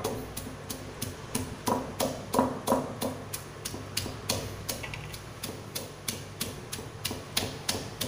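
Stone pestle pounding bird's eye chillies and sugar in a stone mortar: a steady run of dull knocks, about three a second, loudest around two to three seconds in.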